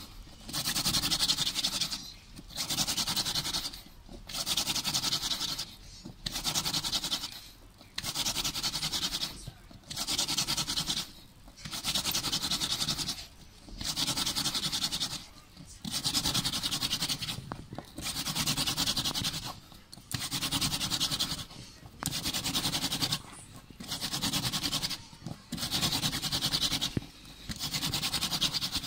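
Hand-drill fire making: a wooden spindle spun back and forth between the palms, grinding in the notch of a wooden hearth board. The rubbing comes in strokes of about a second and a half, with short breaks as the hands go back to the top of the spindle, about fifteen strokes in all. The friction grinds out dark wood dust in the notch and heats it toward an ember.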